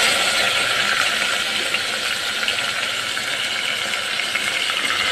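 Boiled mutton pieces sizzling loudly in hot oil with fried onions in a steel pot, a steady dense crackle as the wet meat hits the oil.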